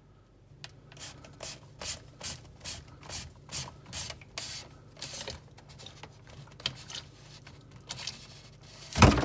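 Plastic filter housing of a reverse-osmosis water filter being unscrewed: a run of short rubbing, scraping strokes, about two or three a second, then a louder knock near the end as it comes free.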